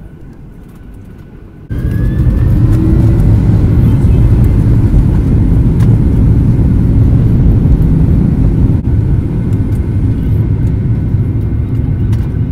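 Boeing 737 jet engines at takeoff power heard from inside the cabin over the wing, a loud steady rumble of the takeoff roll that comes in suddenly about two seconds in, after a quieter cabin hum.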